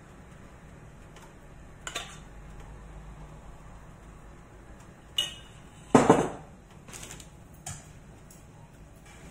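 Metal spoon clinking against a stainless steel saucepan as cheese sauce is spooned out, a handful of separate knocks; the loudest, a clatter about six seconds in, comes as the saucepan is set down on the counter.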